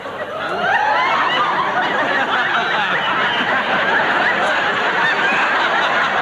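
Studio audience laughing at a punchline: many people laughing together, swelling about half a second in and carrying on steadily.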